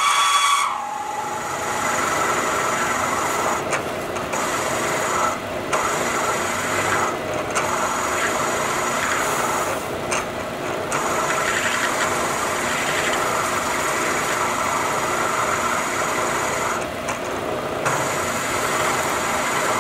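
Bridgeport vertical mill running under load as a 3/4-inch counterbore cuts into a steel bar: a steady scraping cutting noise over the machine's hum, with short lulls every few seconds. Long stringy chips come off the cut.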